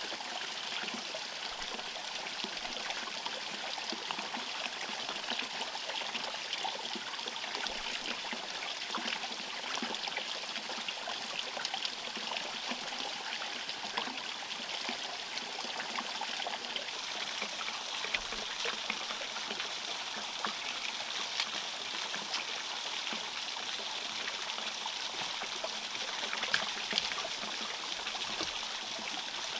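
A thin stream of water running steadily off a wooden edge and splashing over hands and leaves being rinsed under it, with small scattered splashes and taps.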